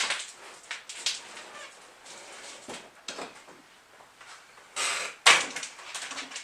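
Irregular scuffs and knocks as the inflatable raft on its PVC pipe dolly is handled and shifted, with a sharp knock about five seconds in.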